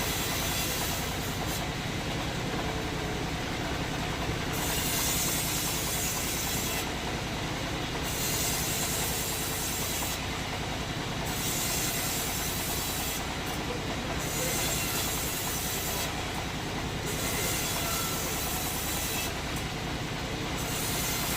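Sawmill machinery running steadily with a low hum, and a high hiss that comes and goes every few seconds.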